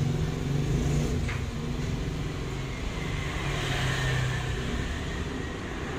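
Steady low motor hum, like an engine running nearby, with an even background noise.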